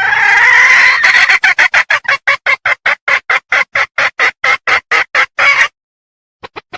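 Red junglefowl hen (Sumatran) calling in heat: one long drawn call, then a fast run of short clucks, about six a second, that stops suddenly, followed by a few fainter clucks near the end.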